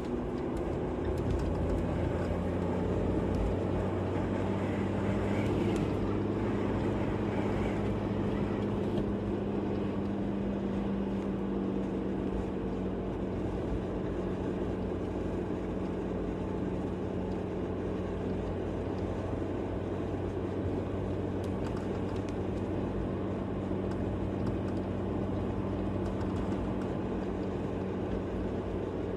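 A moving vehicle's engine and road noise: a steady, even drone with no changes in pace.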